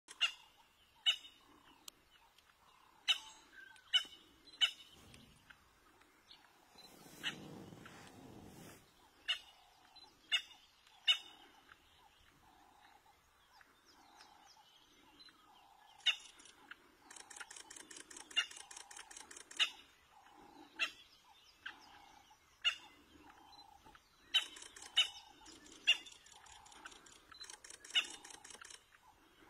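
Wild birds calling: sharp single chirps at irregular intervals over a steadily repeating lower call. Fast buzzing trills come in twice, about halfway through and again near the end. There is a brief low rumble about seven seconds in.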